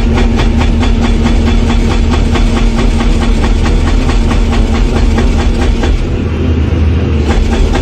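Loud machinery running with a fast, even clatter over a steady low hum, starting abruptly and going on without a break.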